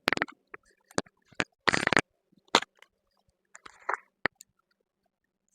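Sharp clicks and knocks from measuring tools being handled against the table saw's fence and top, with a short scraping rasp about two seconds in.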